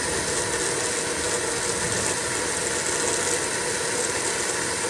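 Propane torch burning steadily, a continuous hissing flame with a rough, crackling texture, heating an old leaf spring shackle bushing to burn it out.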